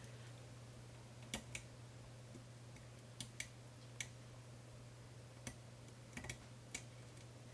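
Faint, scattered metallic clicks of a lock pick working the pins of a Medeco cam lock, about ten ticks spaced irregularly, over a low steady hum.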